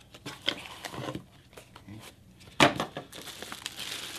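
Cardboard box and paper packaging being handled in short rustles and clicks, with a sudden loud rustle about two and a half seconds in. Near the end the plastic bag around the e-bike charger crinkles as it is picked up.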